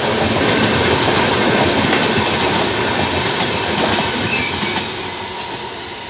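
Passenger train coaches rolling past close by, wheels rumbling and clattering on the rails. The sound fades away as the last coach passes and draws off, about four and a half seconds in.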